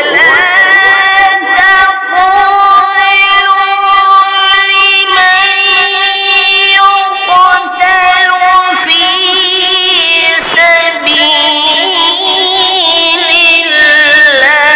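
A man reciting the Quran in melodic, high-pitched tajweed style, drawing out long held notes and then wavering, ornamented turns, with brief breaks between phrases.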